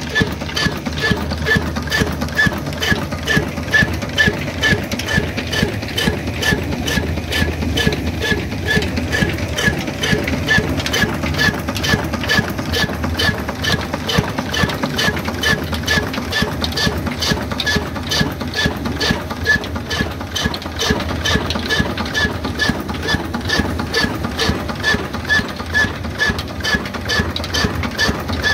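Old Ruston & Hornsby stationary diesel engine running steadily, with a regular rhythm of sharp metallic clicks several times a second over its low running note.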